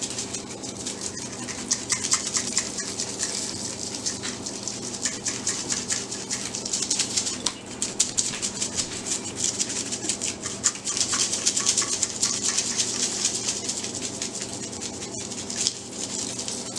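Dry seasoning rattling inside a plastic shaker container as it is shaken over meat in quick, continuous strokes.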